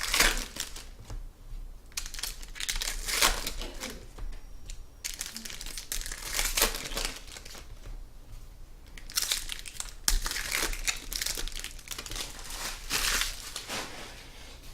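Plastic wrapping crinkling and tearing in irregular bursts as a pack or box of trading cards is unwrapped by hand.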